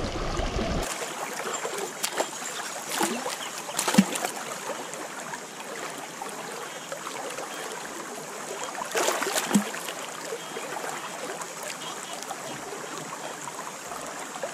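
Shallow creek water running steadily, with a few louder sloshes and splashes as a gold pan is worked in the water, about two, three and four seconds in and again around nine seconds.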